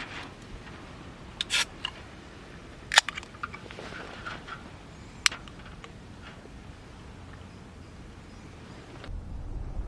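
A few sharp clicks and knocks, the loudest about three seconds in, over a steady faint hiss; near the end the background gives way to a low rumble.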